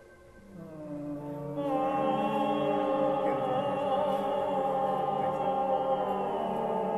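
Ambient vocal music: layered, held voices swell in from a quiet dip over the first two seconds, then sustain a steady, chant-like chord.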